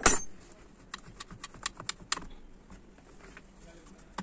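A sudden loud rustling scrape, then a run of light clicks and knocks as a rubber air-intake hose and its clamp are worked off an engine's throttle body.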